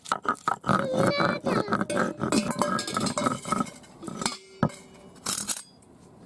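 Stone roller rocked and knocked on a flat grinding stone (sil and nora), crushing tomatoes, green chillies, ginger and garlic into a wet paste: rapid clacks of stone on stone with squelching, then one sharp knock, and quiet near the end.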